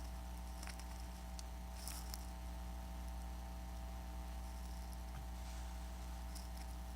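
Steady low electrical mains hum, with a few faint light clicks and ticks of small tools handling the tiny screws and bracket inside an iPad Air 2.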